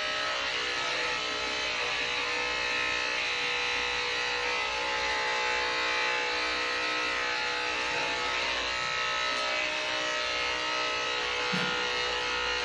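Electric dog-grooming clippers buzzing steadily as they shave a border collie's coat short.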